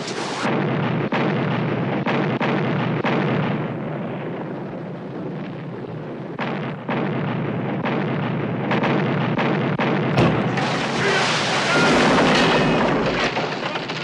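Naval cannon fire from sailing warships: repeated cannon shots over a continuous noisy din, with the heaviest and loudest blast near the end.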